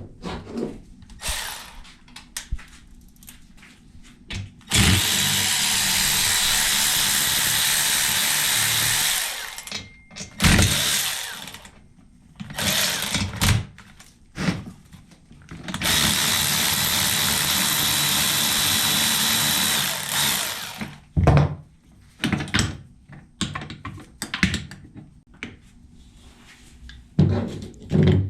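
A power tool run in two steady bursts of about five seconds each, with short knocks and clinks of metal parts being handled between them, during the teardown of a Honda B16 transmission.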